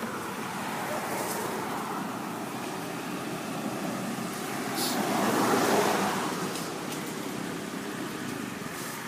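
Steady hum of road traffic, with a vehicle passing that is loudest about five to six seconds in.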